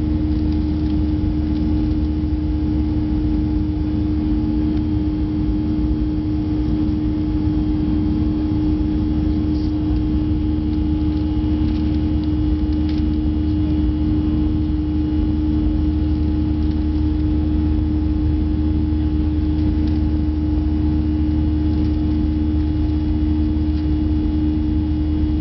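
Cabin noise of a Boeing 737-300 climbing after take-off: its CFM56 turbofan engines give a steady drone with a strong, even hum tone over a low rumble, heard from a window seat beside the engine.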